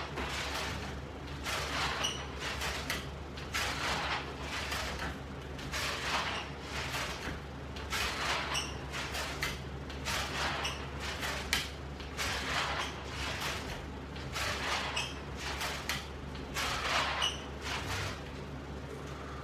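Ab roller wheel rolling out and back across the floor in repeated rollouts, a swelling rolling sound about every two seconds over a steady low hum.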